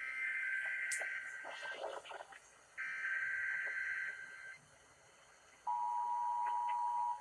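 Emergency Alert System tones on broadcast radio: two harsh warbling data bursts of about a second and a half each, the SAME header that opens an alert. Near the end the steady two-tone EAS attention signal begins, heralding a Required Monthly Test.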